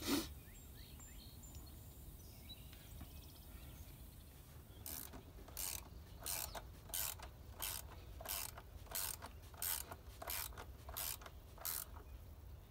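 Hand socket ratchet on a long extension clicking as it is swung back and forth, about eleven evenly spaced strokes, roughly one and a half a second, starting about five seconds in.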